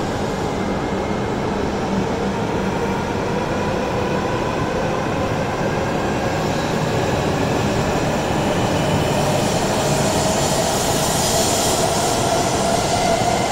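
A coupled E5 and E6 series Shinkansen pulling out along an underground station platform. Its traction motors give a whine that slowly rises in pitch as it gathers speed, over a steady rumble and rush of wheels and air that grows a little louder near the end.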